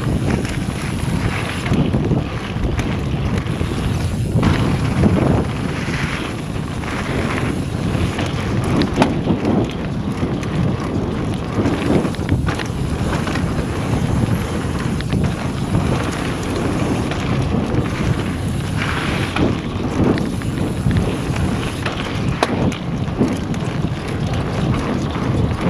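Wind rushing over a mountain bike's action-camera microphone, with tyres rolling over a gravel trail and the bike rattling and knocking over bumps throughout.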